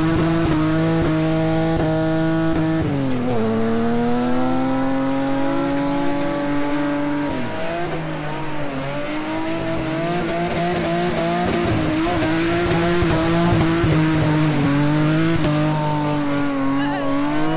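Toyota Supra MK4's naturally aspirated 2JZ-GE straight-six held high in the revs while drifting on ice. The pitch drops sharply about three seconds in and then climbs slowly, dips again about halfway through and recovers, then falls once more near the end.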